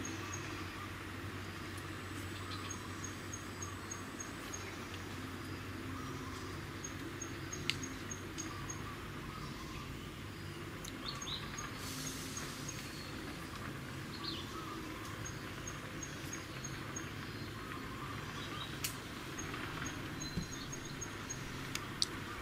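Outdoor ambience with a steady low rumble, through which a high, quick pipping call repeats in short runs of about six notes every few seconds. A few faint clicks and rustles come and go.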